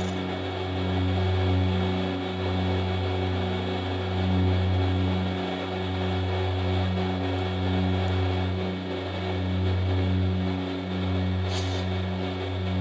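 Milling machine running, its cutter cutting into a steel casting: a steady low hum that swells and fades every second or two, with a brief high hiss near the end.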